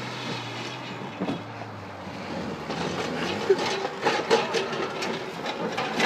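Car running with repeated clattering and knocking, its engine hum fading out after about two seconds.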